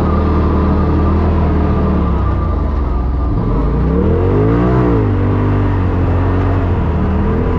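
Polaris RZR Turbo S side-by-side's turbocharged twin-cylinder engine running under load, revving up and falling back about four to five seconds in.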